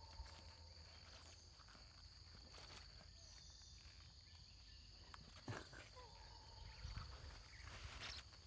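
Quiet outdoor ambience dominated by a faint, steady high-pitched insect drone, with a few soft clicks and rustles about five and a half and eight seconds in.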